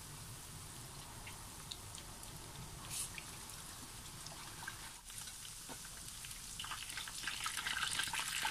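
Chicken breast pieces frying in hot oil: a steady sizzle with scattered small pops and crackles that grows louder near the end.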